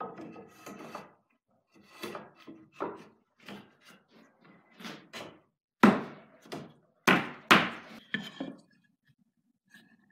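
Square wooden frame pieces being slid and set down on a wooden workbench: a run of wood-on-wood knocks and scuffs, with three loud knocks in the second half.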